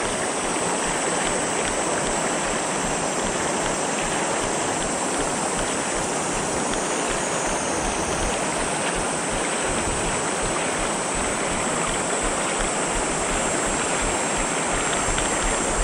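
Steady rush of a fast-flowing mountain river's riffle.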